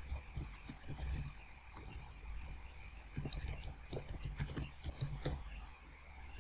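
Typing on a computer keyboard: a run of irregular key clicks as a short terminal command is entered.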